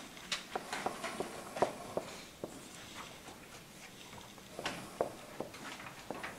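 Dry-erase marker tapping and scratching on a whiteboard as numbers are written: an irregular run of short, sharp taps, sparser in the middle.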